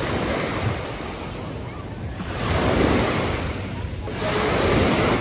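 Small sea waves washing onto a sandy beach, the surf swelling louder twice, about two seconds in and again about four seconds in, with wind buffeting the microphone.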